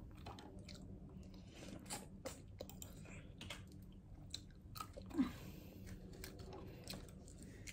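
A person chewing and gnawing meat off a large bone: faint scattered crunches and mouth clicks, with a short hummed note about five seconds in.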